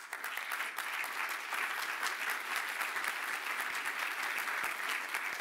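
Audience applauding steadily, many hands clapping at once, at the end of a speech.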